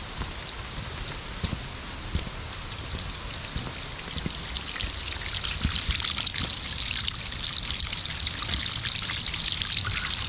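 Water trickling, with many small splashes, louder from about halfway through.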